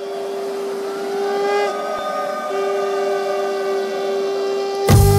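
Conch shells blown in long, steady held notes. The main note breaks off about two seconds in and starts again, and other conch notes sound above it, over the hiss of fountain fireworks. Music cuts in suddenly right at the end.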